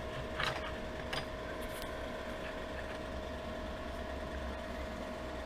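Steady low machine hum with a faint constant tone, and a few light clicks and rustles in the first couple of seconds.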